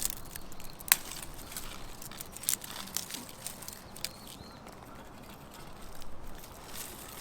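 Small twig fire crackling in a titanium wood stove, with irregular sharp snaps scattered throughout.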